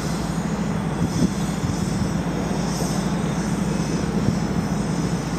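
Diesel locomotive engines running under power, out of sight, as a steady low drone with noise over it.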